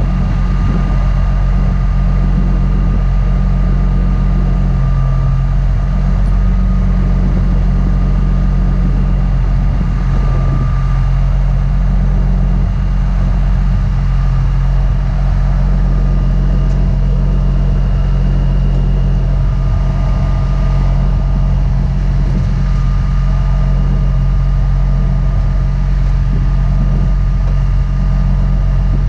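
Heavy wrecker's diesel engine running steadily while its winch pulls a semi tractor in on the cable, with a thin steady whine above the engine.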